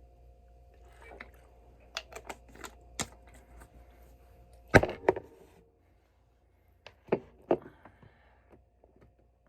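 Irregular clicks and knocks, a handful scattered through, the loudest about five seconds in, over a faint steady hum.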